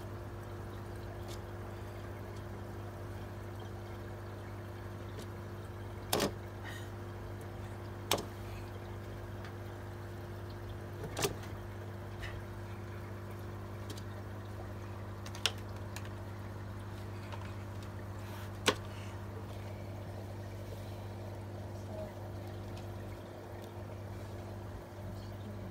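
Steady low hum of the aquarium's running equipment with faint water noise. About five sharp, isolated knocks are heard: cichlids striking the magnetic glass cleaner against the tank glass.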